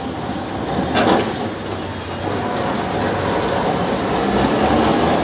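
Alexandria tram car running past close by: a steady rumble of steel wheels on the rails, with one loud knock about a second in, growing gradually louder toward the end.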